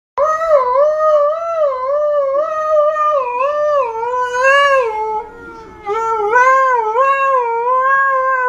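Husky-type dog howling in long, wavering howls that rise and fall in pitch. About five seconds in the howl goes softer and lower for a moment, then swells back up and carries on.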